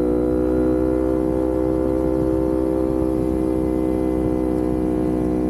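Kawasaki Ninja 400's parallel-twin engine pulling at steady cruising revs while riding on the open road, with wind rumble on the bike-mounted microphone.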